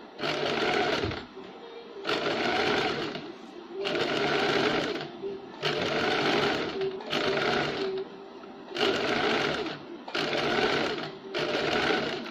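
Electric domestic sewing machine stitching along a curved neckline edge, running in short stop-start runs of about a second each with brief pauses between them as the fabric is turned.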